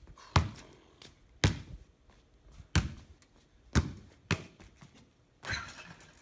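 A basketball dribbled on a stone patio: about five sharp bounces roughly a second apart. Near the end, a longer rattling hit as the ball strikes the hoop on a missed dunk.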